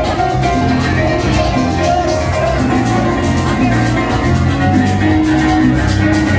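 Live band playing upbeat music with a steady beat and a moving bass line, heard from the dance floor of a crowded club.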